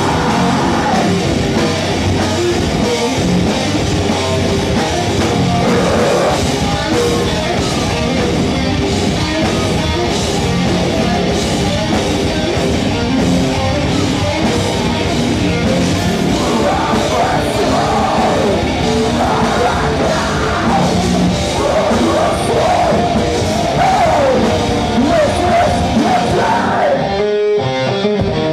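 Live metalcore band playing loud and full: distorted guitars, bass and drums with yelled vocals. About a second before the end the band drops out, leaving an electric guitar picking clean notes.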